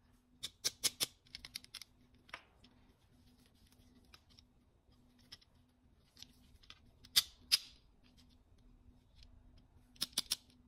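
Sharp clicks from a pair of metal-framed aviator sunglasses being handled, their arms folded and opened on the hinges. The clicks come in small clusters, the loudest two about seven seconds in.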